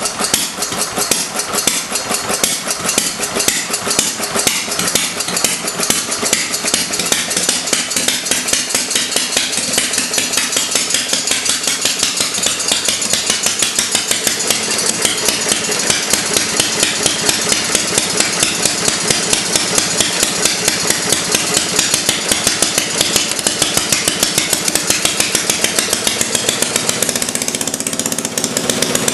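Fairbanks-Morse Z style D 2-horsepower single-cylinder stationary engine running, a steady beat of firing strokes that comes quicker and more even from about halfway through as the idle is turned up.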